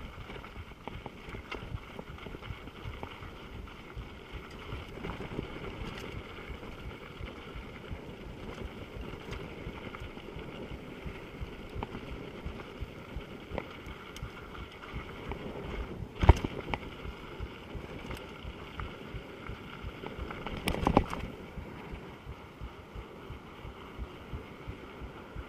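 Mountain bike rolling fast downhill on a tar road, with wind rushing over the microphone, tyre noise and scattered small rattling clicks. A sharp knock about two-thirds of the way through, and a short burst of rattling a few seconds later.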